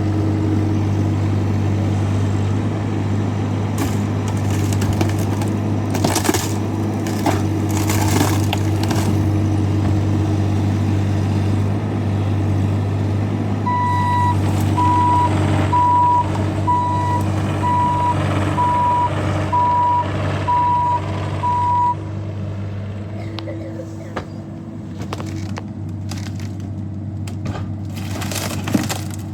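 Compact diesel tractor (Massey Ferguson 2606) engine running steadily, with a few knocks and clatters early on. About halfway through, the machine's warning indicator beeps in a string of evenly spaced beeps for several seconds, then stops. The engine then runs quieter near the end.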